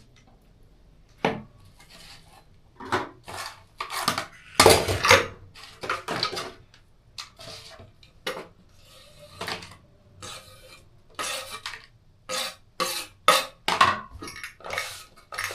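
A knife cutting the skin off a pineapple: irregular cuts, knocks and scrapes of the blade, one or two a second, some longer and rougher than others.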